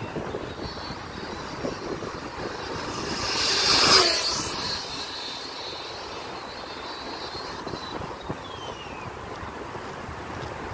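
Kyosho Inferno Neo 3.0 VE electric RC buggy, with a 2000kV brushless motor on 6S, passing at speed run pace. Its high motor whine rises and grows louder to a peak about four seconds in, then drops in pitch as it goes by and fades away down the road.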